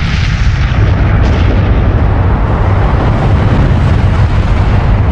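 Large explosion sound effect: a loud, continuous rumble, heaviest in the low end, that holds steady without letup.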